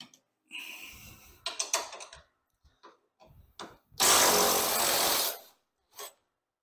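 A tool working a golf cart windshield's mounting bolt loose: a few scattered clicks and knocks, then a loud steady run lasting just over a second near the middle, then one more click.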